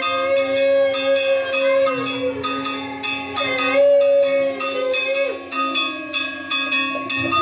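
Puja hand bell rung continuously in quick strokes during an aarti, over steady held tones.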